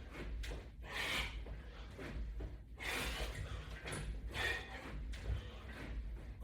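A person breathing hard in short, noisy puffs about every one and a half to two seconds while exercising, over a steady low hum.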